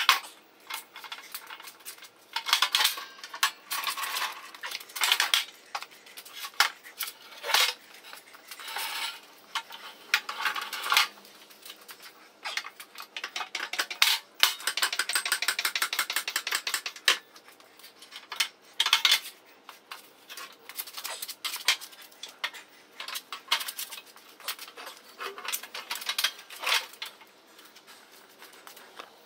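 Steel pallet jack being dragged, tipped and lifted into position: repeated metal clanks, knocks and rattles, with a longer run of rattling about halfway through.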